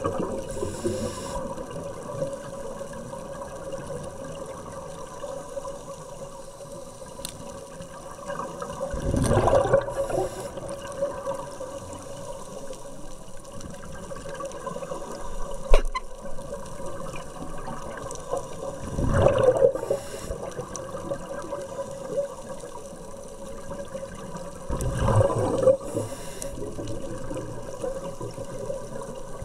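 Scuba diver breathing through a regulator underwater: exhaled air bubbles out in a rushing burst about a second long, three times several seconds apart, over a steady underwater hum. A single sharp click is heard about halfway through.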